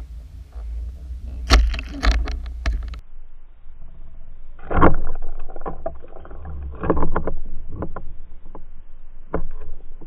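Underwater audio from a camera towed behind fishing lures: a steady low rumble of water with a few sharp clicks, then a run of irregular clicks and knocks, the loudest about five and seven seconds in, as a pike strikes at the lures.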